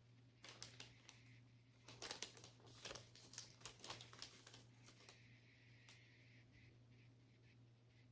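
A quick run of light clicks and scratchy rustles from small objects being handled, lasting about four seconds, then only a low steady hum.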